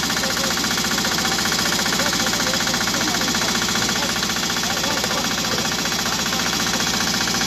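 Small portable engine-driven power unit running steadily close by, its rapid even firing pulse unbroken.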